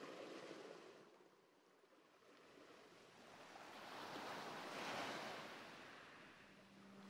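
Faint sea waves washing in two slow swells, the second, about five seconds in, the louder.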